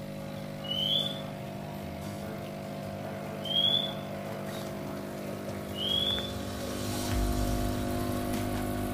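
Electric aquarium air pump (aerator) running with a steady, continuous hum, the noise that makes it a nuisance in a room. Over the hum, a short high chirp that slides upward sounds three times, about every two and a half seconds.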